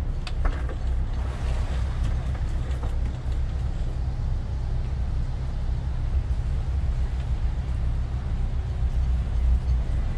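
Sailing catamaran's diesel engines idling steadily, a low hum, with a few short clicks in the first second.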